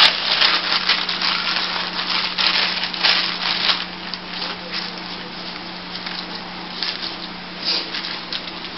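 Thin plastic sheet and newspaper crinkling and rustling under the hands as a soft bubble bar log is rolled and handled, busy for the first few seconds and then sparser.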